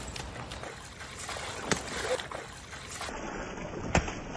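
A dog plunging into shallow river water, with one loud splash near the end. A shorter, sharp knock comes about two seconds before it.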